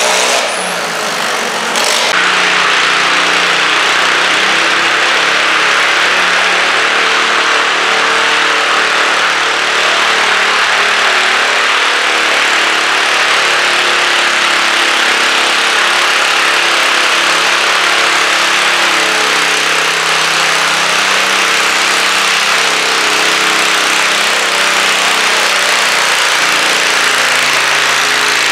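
Garden tractor engine running hard under load while dragging a weighted stoneboat on a dirt pulling track. The sound dips and changes briefly about two seconds in, then runs steadily.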